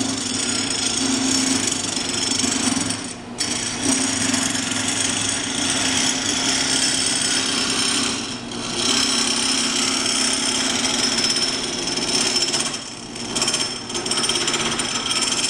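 Homemade gouge made from a car piston pin cutting a spinning cumaru spindle on a wood lathe: a steady rough scraping of the tool on the wood over the lathe motor's hum. It drops out briefly about three times, at about three, eight and a half and thirteen seconds, as the tool lifts off the wood.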